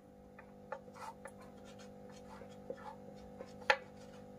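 Felt-tip marker writing on a whiteboard: light scratches and taps as the tip forms the figures, with one sharper click about three and a half seconds in. A faint steady hum runs underneath.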